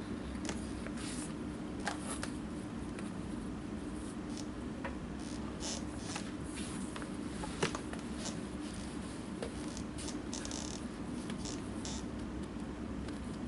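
Leather knife paring a leather welt strip, scraping strokes of the blade on leather and board with a few sharp clicks, the loudest a little past halfway, over a steady low hum.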